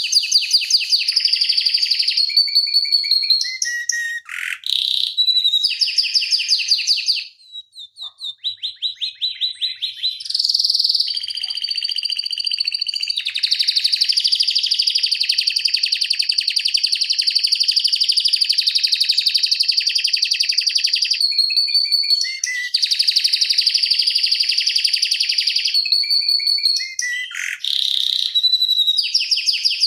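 Domestic canary singing a long rolling song. Fast, dense trills run in phrases of a few seconds, linked by short whistled notes, with one unbroken roll of about eight seconds in the middle.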